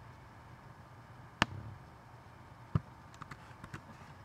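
Computer mouse clicks while renaming a file on screen: two sharp clicks about 1.4 s and 2.8 s in, then a few faint quick ticks, over a low steady hum.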